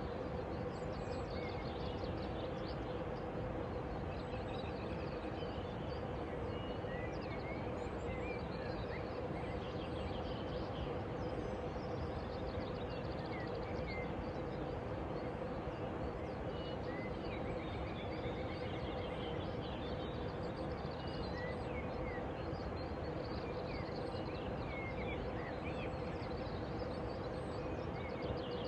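Small birds chirping and calling on and off over a steady background of noise with a constant low hum.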